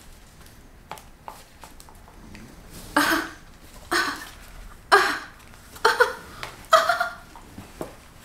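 A woman's short, breathy bursts of laughter, about five of them roughly a second apart, starting about three seconds in.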